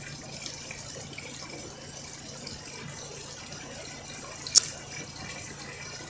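Garden pond's spray fountain jets and small spillway waterfall splashing steadily into the pond, with a low steady hum underneath. One sharp click about four and a half seconds in.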